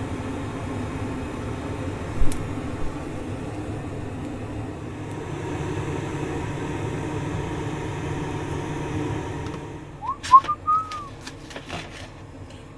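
A steady whirring hum, like a small fan or burner running, that dies away about ten seconds in. A few short whistled notes follow, along with light clicks.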